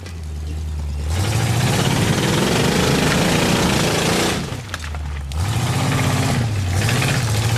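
Rock buggy's engine being revved in bursts as it climbs over rocks: it starts at idle, revs up about a second in, drops back to idle at around four and a half seconds, and revs again a second later.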